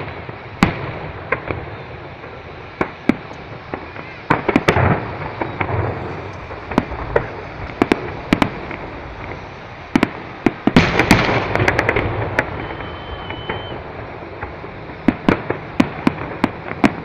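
Fireworks display: a series of sharp bangs from bursting shells, thickening into quick clusters of rapid pops about four seconds in and again about eleven seconds in.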